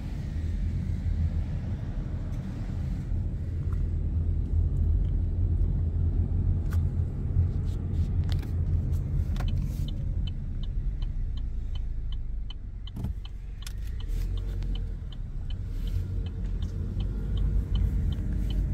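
Car cabin rumble from the road and engine while driving. About halfway through, a turn-signal indicator starts ticking steadily, and the car turns near the end.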